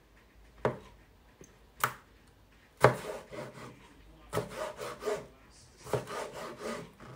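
Chef's knife slicing pickled cucumber on a chopping board: three separate cuts about a second apart, then quicker runs of sawing strokes through the slices.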